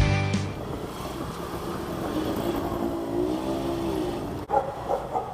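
Music stops just after the start, leaving outdoor traffic noise. One motor vehicle passes, its engine note rising and then falling over about two seconds.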